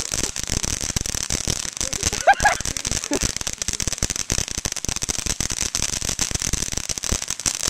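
Ground fountain firework spraying sparks, crackling with a dense, irregular stream of small pops.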